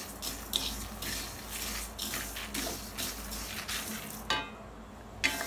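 Spatula scraping a metal pan as whole spices and dal are stirred while dry-roasting, the seeds rattling and rustling with each stroke, about two strokes a second. A short pause about four seconds in, then a sharp click near the end.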